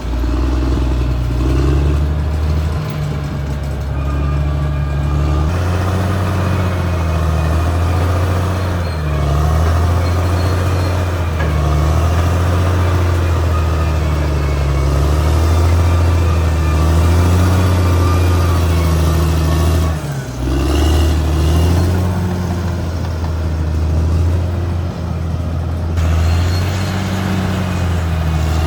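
Caterpillar D6R XL bulldozer's diesel engine working under load, its low hum rising and falling in pitch, with a brief drop about twenty seconds in.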